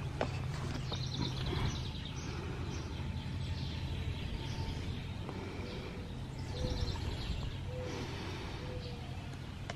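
Outdoor ambience: a steady low rumble with birds chirping on and off.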